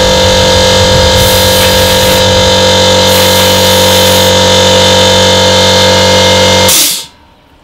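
Electric air compressor running loudly and steadily, then shutting off abruptly near the end.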